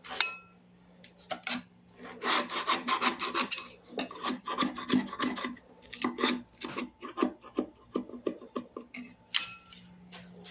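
Rapid short scraping and rubbing strokes on wood as the veneer is worked off a furniture top, starting about two seconds in.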